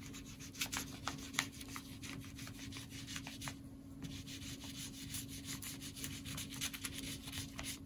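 Frozen watercolour ice cube on a popsicle stick rubbed over paper, a faint scratchy rubbing in many short, irregular strokes as the colour is worked in.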